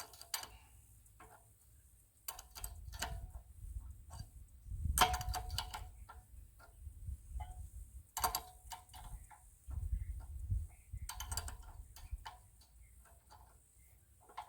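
A wrench working a hydraulic hose fitting, heard as groups of sharp metallic clicks and clinks in several bouts, each with a low rumble of handling.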